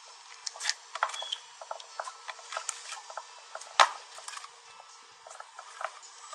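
Clear slime mixed with tiny polymer-clay fruit slices being pressed and squished by hand: an irregular string of crackling clicks and pops, the loudest about four seconds in.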